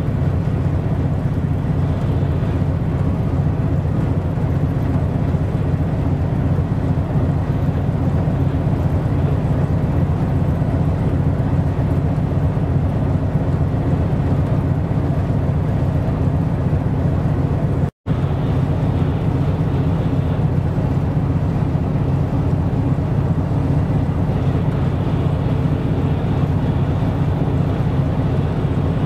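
Steady low drone of a ship's diesel engine running at constant speed, with a split-second break about two-thirds of the way through.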